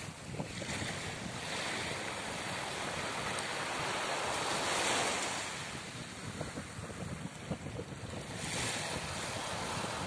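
Small waves breaking and washing up the beach, swelling to a peak about halfway through and again near the end, with wind buffeting the microphone.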